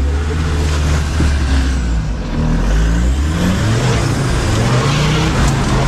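Off-road vehicle engine running hard, its pitch rising and falling as it is revved.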